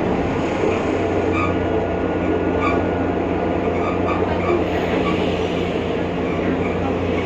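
Interior of a BredaMenarini Avancity Plus city bus under way: its Deutz diesel and ZF automatic driveline give a steady drone with a faint thin whine, the strange sound that was traced to the bus's differential. Light clicks and rattles about every second and a half.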